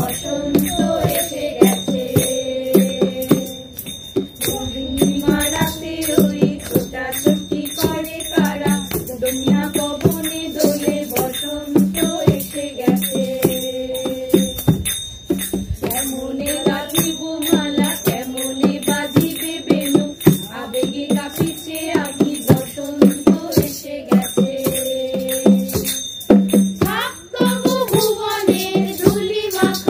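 Live folk-style music played on a harmonium, with held notes stepping through a melody over a steady drone. A hand drum and jingling percussion keep a steady beat underneath.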